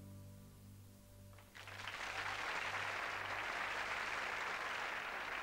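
The last held chord of a song dies away, then a studio audience starts applauding about a second and a half in and keeps going.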